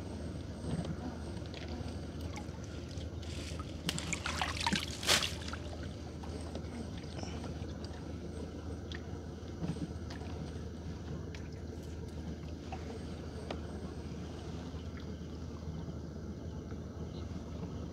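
Water trickling and sloshing around a small fishing boat over a steady low hum, with a brief louder splashing burst about four to five seconds in.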